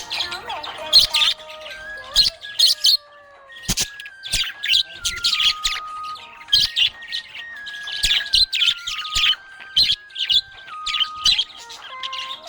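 Budgerigar chirping and twittering in quick, busy bursts throughout, over a simple background tune of held notes stepping up and down.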